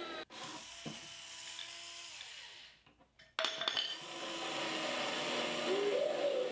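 Cordless drill driving screws into a pine tool tote, the motor whining steadily. It runs twice: the first run fades out near three seconds in, and a louder second run starts about half a second later.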